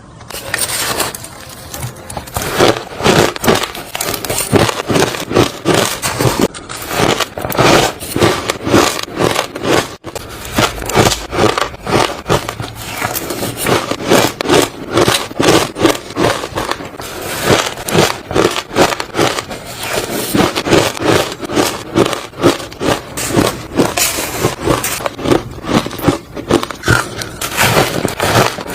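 Close-up chewing of soft, crunchy ice: rapid, continuous crunching, about three or four crunches a second.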